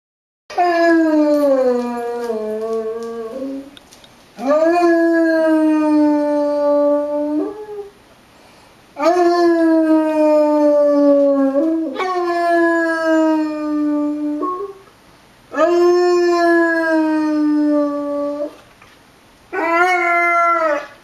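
Basset hound howling: six long howls, each about three seconds and drifting slightly down in pitch, with short breaks between them and the last one shorter. It is the dog's response to tornado sirens.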